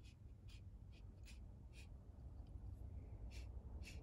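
Faint short scratchy ticks of 3D-printed plastic model parts being handled and fitted together by hand: five in quick succession, a pause of over a second, then two more, over a low steady hum.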